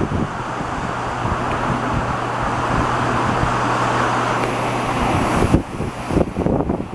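Storm wind rushing, with a steady low hum underneath. The rush swells for about four seconds, then eases, and gusts buffet the microphone in the last second or two.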